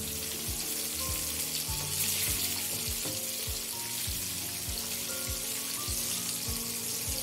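Breaded chicken fillets shallow-frying in hot oil in a pan, a steady crackling sizzle as oil is spooned over them. Background music with a steady beat plays underneath.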